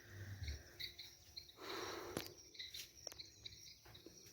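Faint rural outdoor ambience: insects chirping steadily in high, repeated notes, with a short burst of noise about two seconds in.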